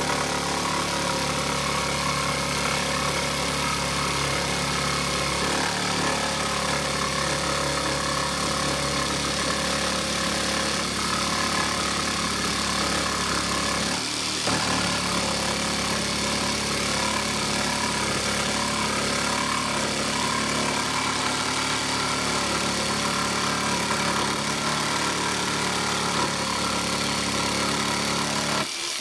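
Electric power sander running steadily on oak pallet boards, briefly dipping about halfway through.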